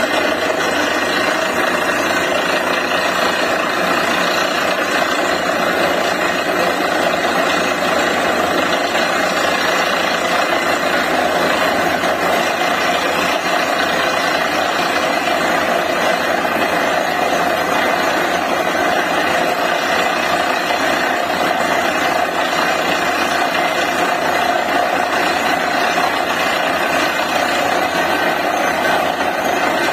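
DTH borewell drilling rig running steadily at work, a loud, even mechanical din with no pauses.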